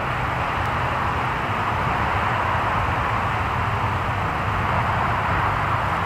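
Steady rushing background noise, an even hiss with a low rumble underneath, unchanged throughout and with no distinct events.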